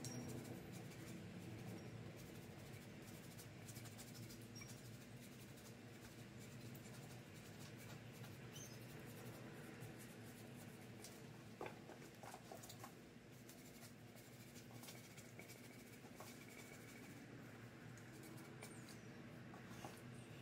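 Near silence: faint room tone with a low steady hum and scattered light clicks and scrapes.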